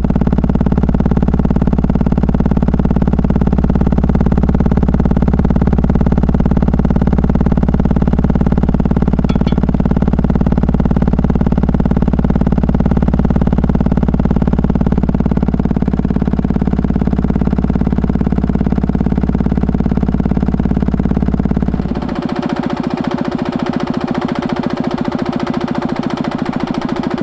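Stuart Turner H1 stationary engine running steadily with no load on it, the unloaded running the owner wants evened out with a load. About 22 s in the sound changes suddenly: the deep low rumble drops out and a lighter, busier clatter carries on.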